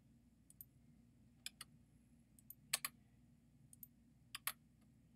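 Computer mouse clicking: six short pairs of sharp clicks spread over the few seconds, each a quick press and release, over a faint low hum.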